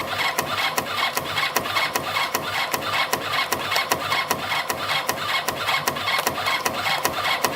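CNC compression-spring coiling machine feeding and coiling 1.0 mm wire: a steady mechanical whir with sharp, evenly spaced clicks about four times a second, the machine's repeating coil-and-cut cycle.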